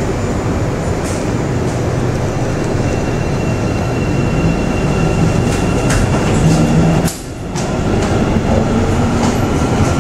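Guangzhou Metro Line 3 subway train heard from inside the car while running: a steady, loud rumble with a faint high tone in the middle, and a brief drop in loudness about seven seconds in.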